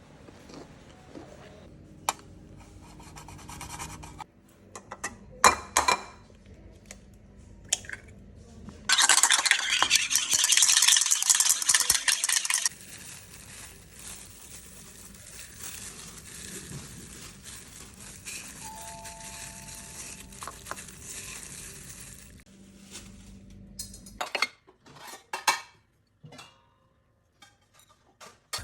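Cutlery clinking and scraping against dishes, with scattered sharp clicks. About nine seconds in comes a loud hissing rush lasting a few seconds.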